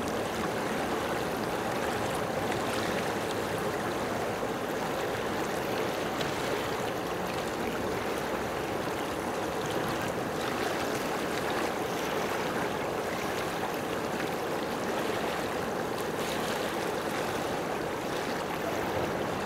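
Steady rushing water, an even wash of sound that does not let up.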